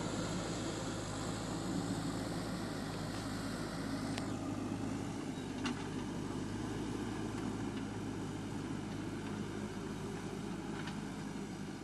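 JCB 3DX backhoe loader's diesel engine running steadily while the machine works, with a few faint clicks of metal about four, six and eleven seconds in.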